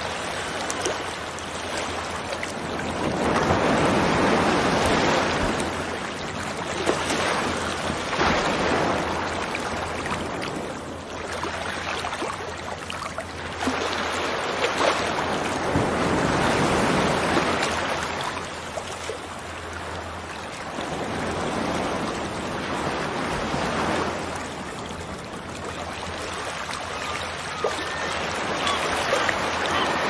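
Sea surf washing in and drawing back, swelling and easing in slow surges every few seconds.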